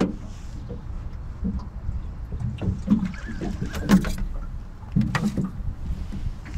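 A hooked flathead being scooped into a landing net beside a small boat: several splashes and knocks against the hull, the biggest about three, four and five seconds in, over a low steady rumble.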